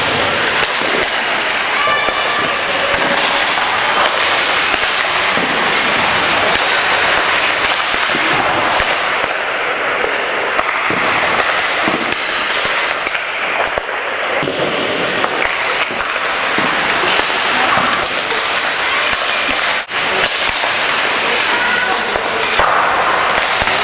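Hockey rink noise: the steady chatter of many voices, with scattered sharp knocks and clacks of sticks and pucks on the ice and boards.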